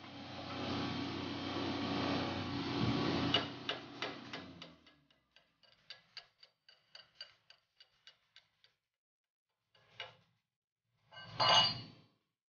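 Freshly laid weld bead on a steel round bar ticking and crackling as it cools, a few sharp ticks a second that thin out and stop, the kind made by slag cracking on a cooling weld. A steady hiss fades out over the first few seconds, and two short knocks come near the end, the second the loudest.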